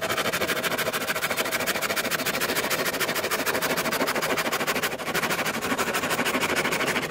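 Hand saw cutting through a wooden board, a steady rasping stroke after stroke, with a brief break about five seconds in.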